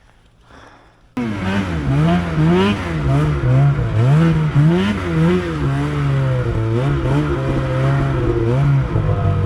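Snowmobile engine starting abruptly about a second in, revving up and down over and over as the throttle is worked, then running at a steadier pitch near the end.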